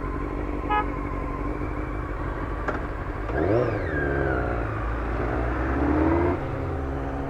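Yamaha FZS600 Fazer's inline-four engine running under way, revving up hard about three seconds in, easing off, then rising again before the revs drop suddenly, as at a gear change. A brief beep sounds about a second in.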